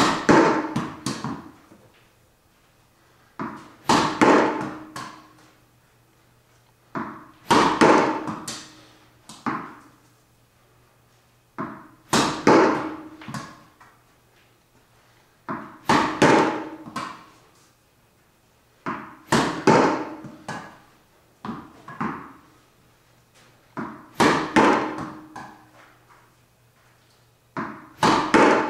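Tennis forehand drills: a ball dropped and bounced, struck with a racket, then knocking off a concrete wall and bouncing on the floor. The pattern repeats eight times, about every three and a half to four seconds.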